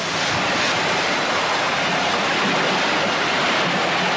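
Floodwater rushing in a swollen river, a steady full-spread noise of churning water.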